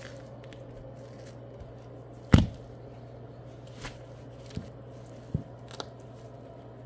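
Sock-clad feet stomping on crushed cucumber on a wooden floor: one heavy stomp a little over two seconds in, then four lighter steps on the pulp, over a steady low hum.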